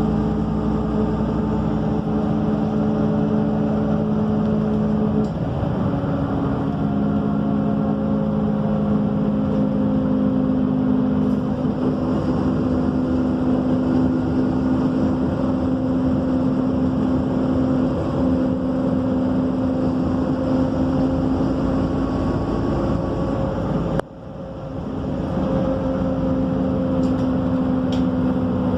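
Diesel engine and drivetrain of a MAN Lion's City A37 city bus, heard from inside the bus as it drives: a steady drone with a few held tones that shift about five seconds in and then drift slowly with speed. Near the end the sound drops abruptly and builds back up over about a second.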